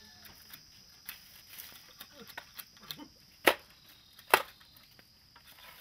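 Open wood fire crackling with scattered small snaps, and two loud sharp pops a little under a second apart about halfway through.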